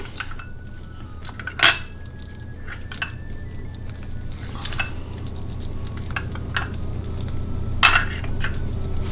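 Raw chicken breasts being handled on a wooden cutting board: scattered light knocks and clinks, one louder about a second and a half in and another near the end, over a steady low hum.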